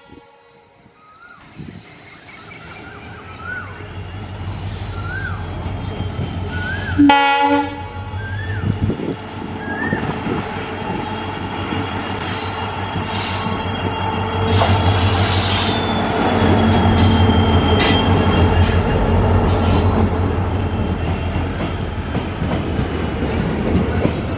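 WDG4 diesel locomotive approaching and passing, growing steadily louder with a low engine drone. Its horn sounds once, briefly, about seven seconds in. A long, high wheel squeal runs under it, and sharp clicks of wheels over rail joints come as the train goes by.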